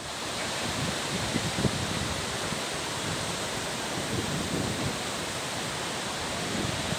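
Steady, even hiss of water, with no breaks or distinct strikes.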